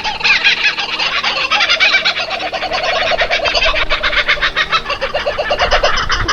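Domestic fowl calling in a fast, unbroken run of short pitched notes, several each second.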